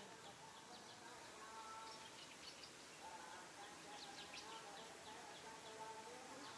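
Very faint forest ambience with scattered short, high bird chirps over a low steady background.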